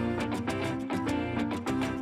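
Background music: a light plucked-string tune, guitar-like, with quick even notes.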